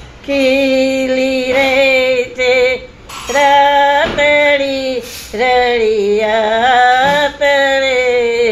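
An elderly woman singing a Gujarati folk song in a single voice, in long held notes that waver in pitch, with several short pauses between phrases.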